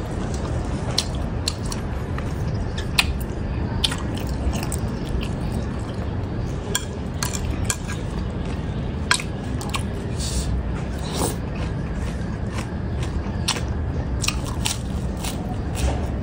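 Close-up eating sounds: chewing and crunching of crisp lettuce leaves with squid and lotus-stem salad, with many short wet clicks and crunches scattered irregularly, over a steady low rumble.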